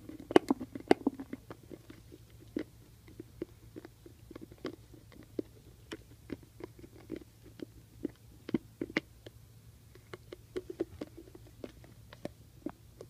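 A puppy licking and gnawing at the inside of a plastic peanut butter jar: irregular clicks and smacks of its tongue and teeth against the plastic, busiest at the start and again near the end.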